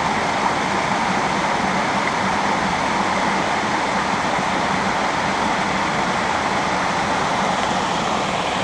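A river rushing over rocks, giving a steady, even rush of water.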